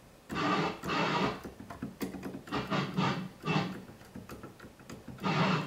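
ARP Omni 2 string section sounding on only a few keys as the keyboard is played: about five short pitched notes, each roughly half a second, with silent gaps where keys give nothing. The notes don't sound right, and most of the keyboard is dead, a fault the repairer puts down to a bad top octave generator.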